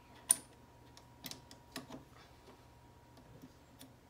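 Plastic parts of a Cricut Maker's tool carriage and blade housing being handled: one sharp click near the start, then a few fainter clicks and ticks.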